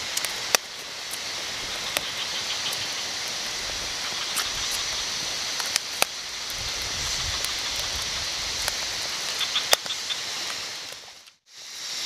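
Wood campfire crackling, with scattered sharp pops, over a steady hiss of rain. The sound drops out for a moment near the end.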